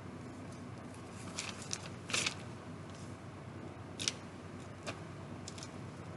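Light plastic clicks and rustles of Lego bricks being handled and pressed onto a small Lego boat hull, scattered and irregular, with the loudest rustle about two seconds in and a sharp click about four seconds in, over a steady low hum.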